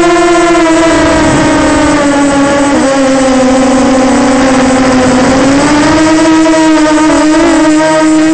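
Walkera Runner 250 racing quadcopter's brushless motors and propellers whining in flight, picked up by its onboard camera. The whine slowly drops in pitch as the throttle eases off over the first few seconds, then climbs back with a few quick wobbles near the end.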